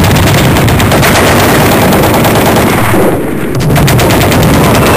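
Machine-gun fire sound effect: a loud, continuous stream of rapid automatic shots that eases briefly about three seconds in, then picks up again.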